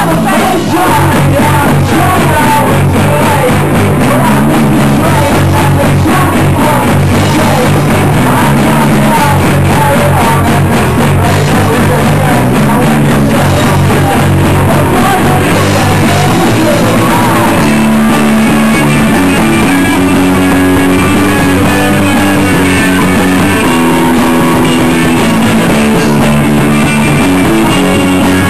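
Live rock band playing electric guitars, bass guitar and drum kit, with sung vocals. The song moves into a new section with a different bass line about two-thirds of the way through.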